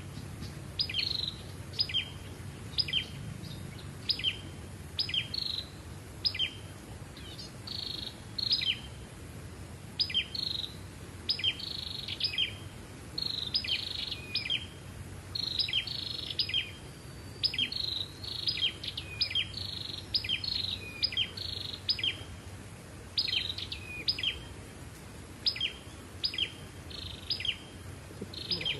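A caged flowerpecker (Vietnamese 'sâu đầu đỏ') giving a long run of short, high chirps that sweep downward, often in quick pairs or small clusters, about one every half second to a second.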